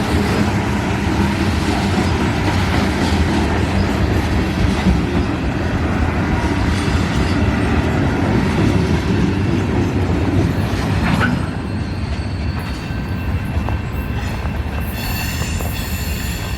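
Canadian National freight train rolling past: a steady, loud rumble of rail cars and wheels on the track, with a thin wheel squeal. It eases off a little about eleven seconds in.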